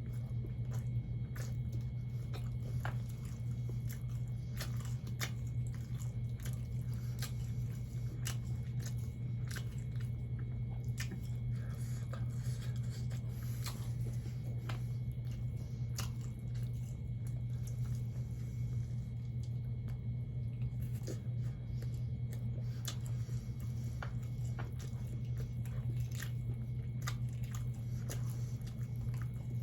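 A person chewing and biting food close to the microphone, with many scattered short crunchy clicks and mouth noises, over a steady low hum.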